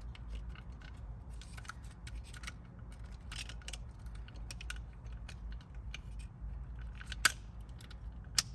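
Small plastic dashcam parts being handled and fitted together: faint scattered ticks and rustles, then two sharp clicks about a second apart near the end, over a steady low hum.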